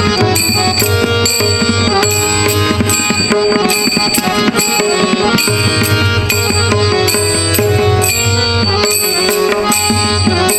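Instrumental interlude of a devotional bhajan: a drum and small hand cymbals keep a steady beat under sustained melody notes, with no singing.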